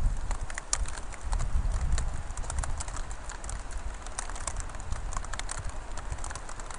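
Hail falling: a dense, irregular patter of small ticks as hailstones strike hard surfaces, over a low rumble.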